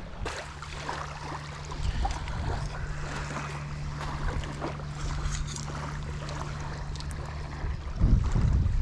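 Lakeshore ambience: small waves washing on a pebble beach, with faint clicks and a steady low hum. About eight seconds in, wind buffets the microphone.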